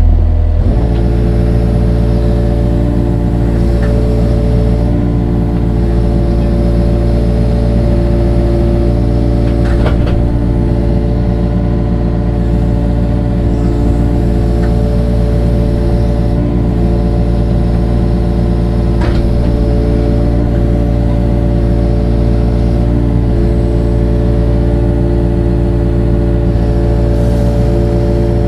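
Engine of a digging machine running steadily under load, close by, with a few sharp metallic knocks as it works the trench.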